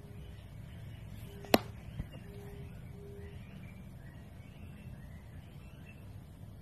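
A single sharp knock about one and a half seconds in and a fainter tap half a second later, over a low steady hum with a few short faint tones.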